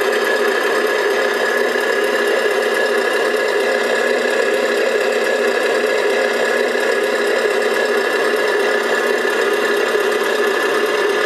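Electric drive motor and gears of a 1/14 scale RC IVECO 4x4 dump truck running steadily: a continuous mechanical whine with a constant high tone.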